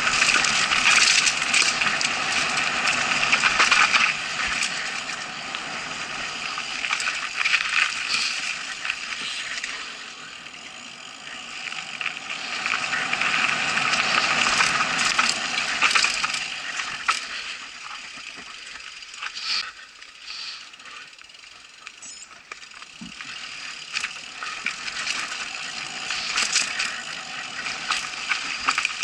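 Mountain bike rattling and clattering over a rough dirt trail, with tyre noise and a run of small knocks from the bike. It is loudest at speed near the start and again partway through, and eases off in the slower stretches.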